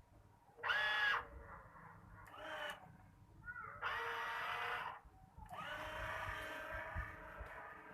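Small electric gear motors of a home-built remote-control excavator whining in short runs as it is driven from the remote: a brief run about a second in, another shortly after, then a longer one near the middle and a long run through the end.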